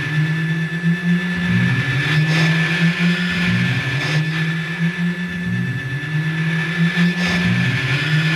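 Synthesized sci-fi machine effect: a low electronic hum that dips and swoops back up about every two seconds, under a steady high whine. It accompanies the start of a transfer through a glowing portal.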